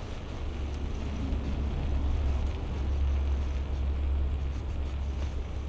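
A road vehicle passing: a low engine rumble that builds to its loudest about three seconds in and then eases off, over a steady street hiss.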